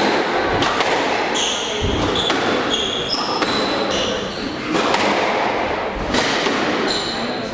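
Squash rally: the ball is struck by rackets and smacks off the court walls in sharp, echoing hits, with players' shoes squeaking on the court floor in short high squeals.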